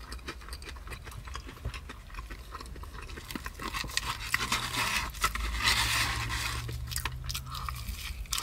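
Close-miked chewing and crunching of food, with many small wet clicks. A low steady hum runs through the second half.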